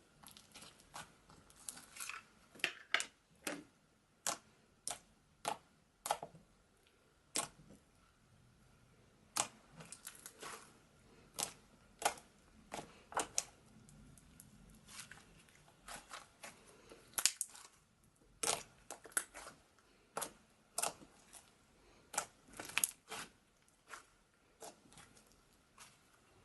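Slime being handled, giving short sharp pops and crackles at an irregular pace, one to three a second.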